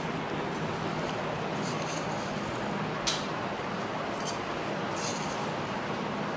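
Steady hiss from a pot of oil heating with fenugreek seeds over a lit gas burner, with a few light clinks of a metal spoon against a clay spice box.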